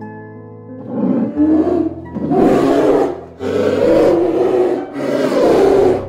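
A large animal roars four times in a row, each roar deep and rough and lasting about a second, over steady background music.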